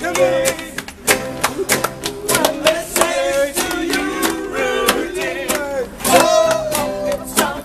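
Acoustic guitar strummed in a steady rhythm while a group of people sings along.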